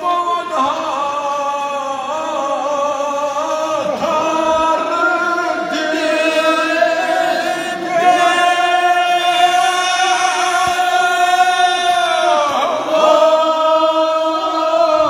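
A man chanting a devotional mourning recitation into a microphone, holding long notes that bend slowly in pitch.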